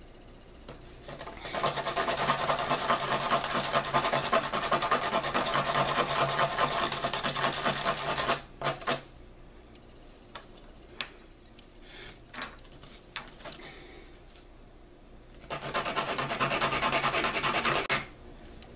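Turkey wing bone tube rubbed rapidly back and forth on sandpaper to smooth its cut edges: a dry rasping for about seven seconds, then a pause with light clicks of the bone being handled, then a few more seconds of rasping near the end.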